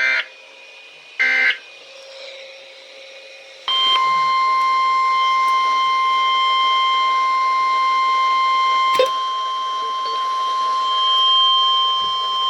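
Weather radio alert signalling: the last two bursts of a SAME digital header, each about a second long and buzzy. After a short pause comes the steady 1050 Hz Weatheradio Canada warning alarm tone, starting about four seconds in and holding for about ten seconds, with a click partway through. This is the alert that heralds a severe thunderstorm warning.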